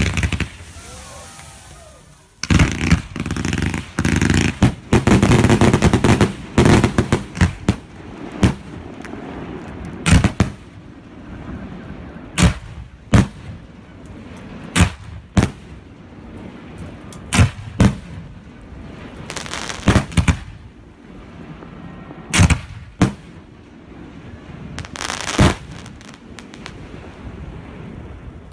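Professional aerial fireworks shells bursting. There is a big bang at the start, then a dense run of rapid bangs for a few seconds, then single sharp bangs every second or two, often in pairs.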